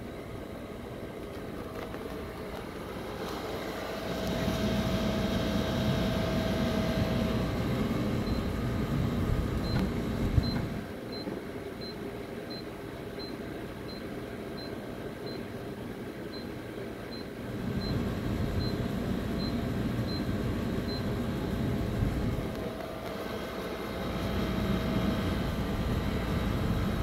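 Royal Vision bottle-drop vending machine's delivery-cup carriage motors running in three spells of several seconds each during a calibration run, the first with a steady whine. Short high beeps sound about every two-thirds of a second through the middle.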